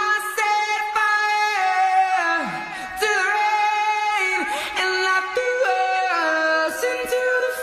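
A high solo voice singing a pop ballad melody in long held and gliding notes, with little or no instrumental accompaniment.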